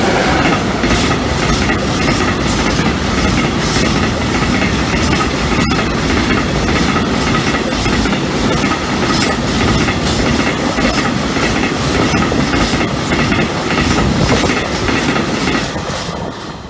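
A train passing close by at speed: a loud, steady run of wheels on rail with repeated clicks as wheel sets cross rail joints. It builds up at the start and falls away near the end as the train clears.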